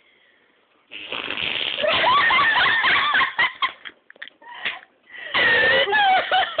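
A person making fake fart noises: two long, buzzy sputters with a wavering pitch, the first lasting about two and a half seconds, the second starting about five seconds in.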